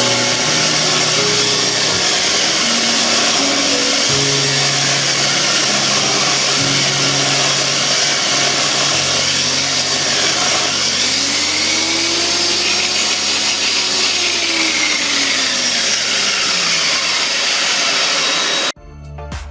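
A power tool, the homemade disc sander, runs and sands wood with loud, dense noise. Background music plays over it. The tool noise cuts off abruptly near the end.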